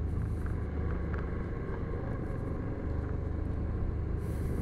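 Motorcycle engine running steadily under a constant rush of wind and road noise, with a short gust of hiss near the end.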